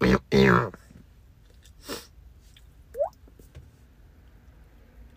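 Vocal beatboxing, fast percussive mouth beats that stop in the first second. Then quiet room tone with a faint short breath-like noise and a brief rising sound about halfway through.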